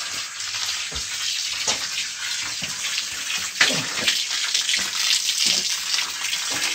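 Thin streams of spring water running from the spouts of a stone fountain and splashing into the basin below, a steady trickling splash.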